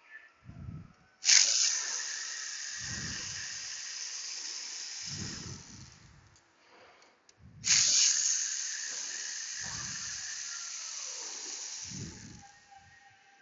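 Two long hisses of a pressurised spray, each starting abruptly and lasting about five seconds before fading, with faint knocks between them.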